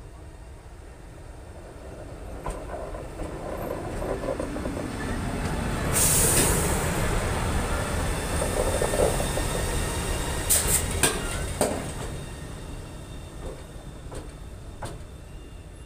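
SBB Ae 6/6 six-axle electric locomotive passing slowly at close range, its running noise swelling and then fading away. There is a brief sharp hiss about six seconds in and a few sharp clacks from the wheels on the rails around ten to twelve seconds.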